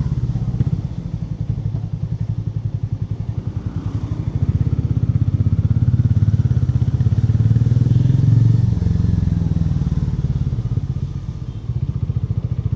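Hero Mavrick 440's single-cylinder engine and stock exhaust running, a deep pulsing exhaust note. It swells louder for a few seconds mid-way, eases off, and dips briefly before picking up again near the end.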